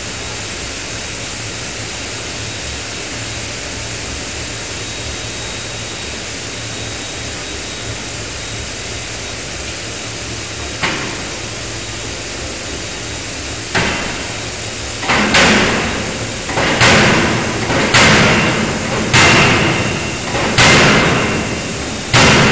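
5-ton electro-hydraulic die forging hammer striking hot steel in a closed die, forging a connecting rod. Steady background noise at first, then a single blow about halfway through, another a few seconds later, and then a run of heavy blows about every one and a half seconds, each ringing briefly.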